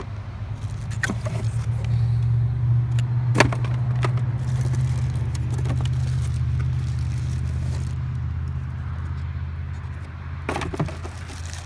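Low engine hum of a motor vehicle going by, swelling over the first couple of seconds and fading away after about eight seconds, with a few sharp clicks and knocks.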